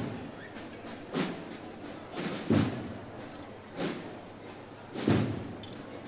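A processional drum beating slowly and evenly, one heavy stroke about every 1.3 seconds, setting the walking pace of a Holy Week procession.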